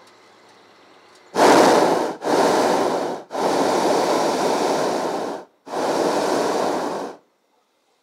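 Hot-air balloon's propane burner firing in four blasts, each a loud steady hiss lasting about one to two seconds, with short gaps between them.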